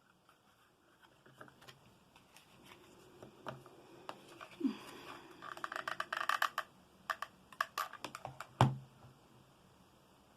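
Paper being handled and rolled into a tube: scattered light clicks and crinkling, with a dense rustle about five to six and a half seconds in. A single sharp knock about eight and a half seconds in is the loudest sound.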